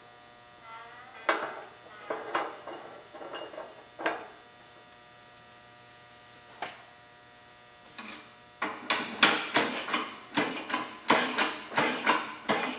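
Metal clinks and knocks of a steel connecting rod and fittings being handled on a shop press: a few scattered knocks, then from about two-thirds of the way through a quick rhythmic run of ringing metallic clanks, two to three a second.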